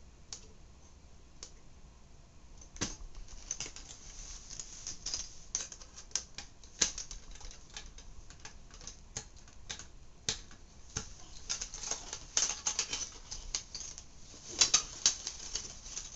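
Plastic and metal parts of a floppy drive clicking and rattling as they are pried and worked apart by hand: a few scattered clicks, then from about three seconds in a dense, irregular run of sharp clicks and snaps.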